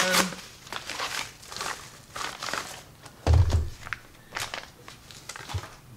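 Paper padded mailer envelope rustling and crinkling as it is handled and emptied, with a dull thud a little past three seconds in as a packaged item is set down on the wooden bench.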